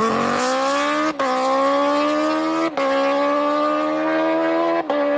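Kawasaki Ninja sportbike's inline-four engine accelerating hard through the gears. The note climbs steadily, then breaks off briefly and drops in pitch at each of three upshifts.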